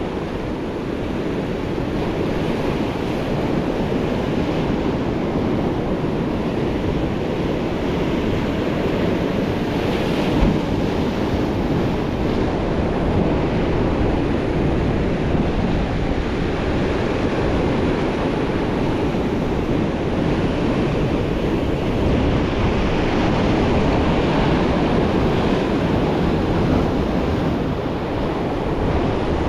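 Rough sea surf washing and breaking against rocks, a continuous heavy rush of water with wind buffeting the microphone. A wave crashes against the rocks a little over ten seconds in.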